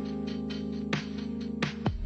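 Electronic background music with a steady beat, held synth chords and sweeping bass drops.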